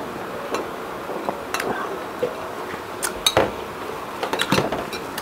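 Metal spoon and white ceramic plate clinking and knocking together in a few sharp clinks as the dish is handled and set down, the loudest cluster about three seconds in.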